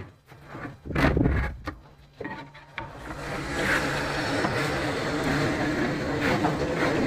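A few knocks and thumps as a wooden armoire is shifted, then from about three seconds in a steady scraping as it slides on towels across a tile floor.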